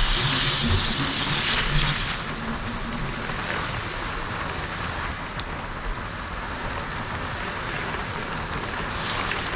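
Steady vehicle running noise, an even rush that is louder and hissier for the first couple of seconds.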